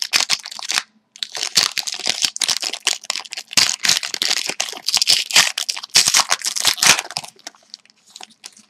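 Hockey card foil pack being torn open and its wrapper crinkled, a dense crackling that stops about a second in and again about seven seconds in, followed by a few faint ticks as the cards are handled.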